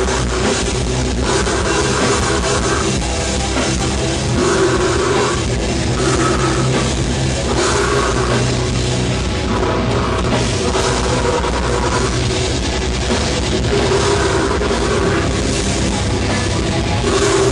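Death metal band playing live: loud, dense heavy metal with a drum kit and a riff pattern repeating about every second and a half.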